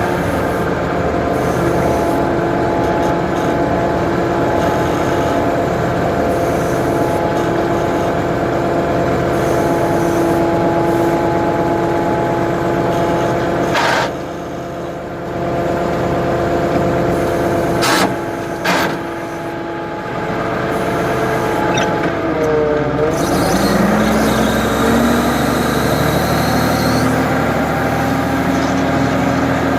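Ford 550 backhoe's engine running steadily. Two sharp knocks come about halfway through, each with a brief drop in level. A little later the engine's pitch bends and it settles at a different speed.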